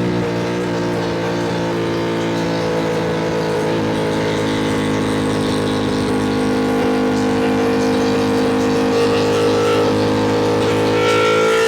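Ducati Panigale V2 V-twin engine running under way at a fairly steady speed, its pitch easing slightly in the middle and rising near the end as the throttle opens.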